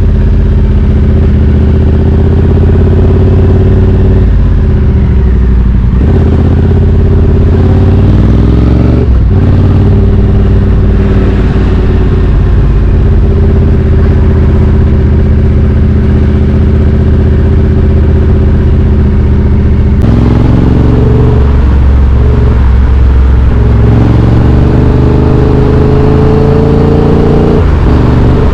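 2020 Triumph Street Twin 900's parallel-twin engine with British Customs slash-cut exhaust tips, running while riding. The pitch changes and breaks several times at gear changes, then climbs steadily near the end as the bike accelerates before dropping at a shift.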